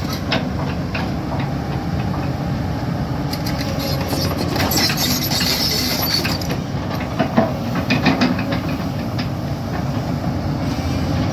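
Excavator running steadily under a dense mechanical din, with scattered metallic clanks and knocks, the loudest cluster a little past the middle.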